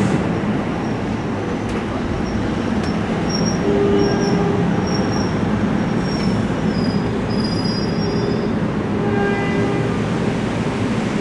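Bi-level commuter train cars rolling past the platform with a steady rumble of wheels on rail. Thin high-pitched wheel squeals come and go through the middle.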